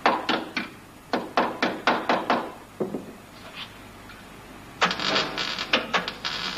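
About ten sharp metal taps in the first three seconds as a steel repair patch is knocked into place on a car body. Then, a little before five seconds in, a MIG/MAG welder's arc strikes and crackles steadily as it welds the patch.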